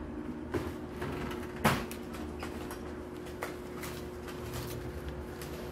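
Shop room tone: a steady hum with a few handling clicks and knocks, the loudest a single sharp knock just under two seconds in.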